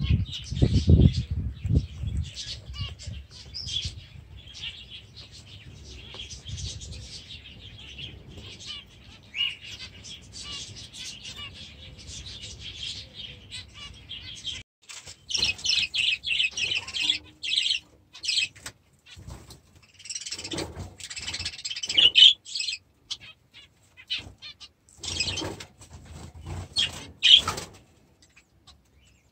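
Budgerigars chattering and chirping together in a dense run of high calls, with a low rumble in the first couple of seconds. The sound cuts out and restarts abruptly several times.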